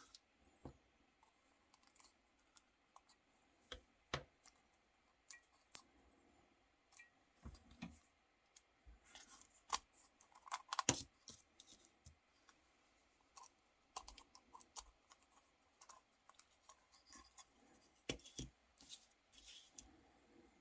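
Small plastic parts of a Nokia 3310 phone being handled: irregular light clicks, taps and short scrapes, with a quick run of taps about ten seconds in.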